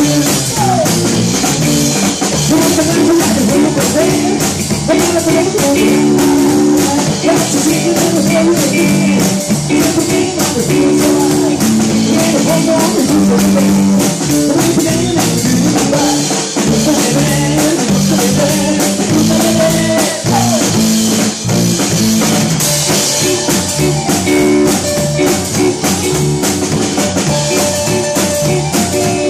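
A live rock band playing a song, with a drum kit keeping a steady beat under guitar.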